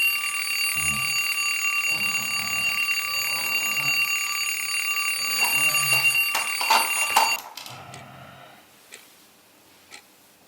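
An alarm clock rings with a steady high tone for about seven seconds, then stops abruptly, leaving a clock ticking about once a second. Under it a man snores with slow, low breaths throughout.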